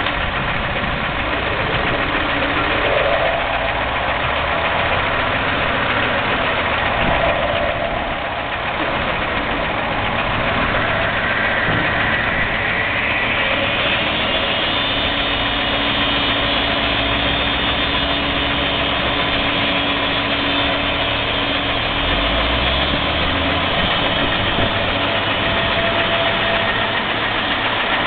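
Heavy diesel engine idling steadily under the running machinery of a gantry log crane. About twelve seconds in, a whine rises in pitch and then holds as the crane's grapple hoists the truck's full log load.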